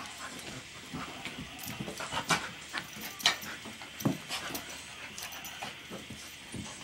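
Two puppies play-fighting on carpet: irregular scuffles and knocks of paws and bodies, mixed with short dog sounds, louder bursts about two, three and four seconds in.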